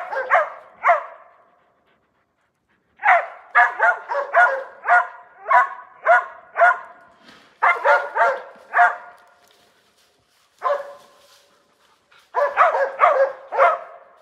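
West Siberian Laika hunting dogs barking at a black bear treed above them, baying to hold it there. Sharp barks come in quick runs of about two a second, broken by short pauses.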